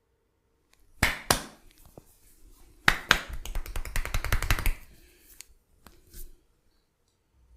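Hand percussion massage on the body: two sharp slaps about a second in, then a fast run of tapping strikes, about nine a second, lasting nearly two seconds.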